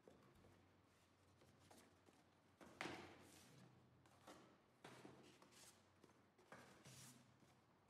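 Faint handling of cardboard packaging: a few brief rustles and scrapes as small cardboard boxes are lifted out of a carton and set down, the loudest about three seconds in.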